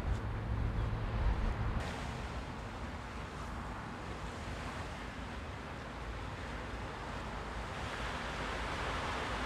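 Black Sea waves washing on the beach, a steady rushing that swells a little near the end, with wind rumbling on the microphone for about the first two seconds.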